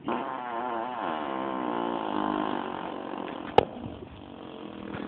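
A person blowing a wavering lip buzz, a mouth-made fart noise that sounds like a revving motorcycle engine. A sharp click comes about three and a half seconds in, and a quieter buzz builds up near the end.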